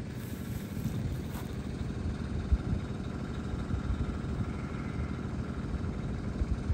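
Low, steady rumble of a vehicle's engine and road noise.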